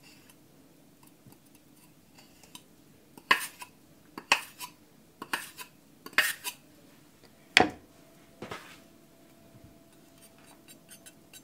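Edge of an aogami carbon-steel kitchen knife scraped across the edge of a flat plate, dulling the blade before sharpening. There are about six sharp scrapes roughly a second apart, starting about three seconds in.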